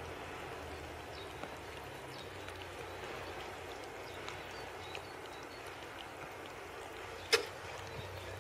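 Two cats eating from a plastic tub: faint chewing with scattered small clicks over a steady hiss, and one sharp click near the end.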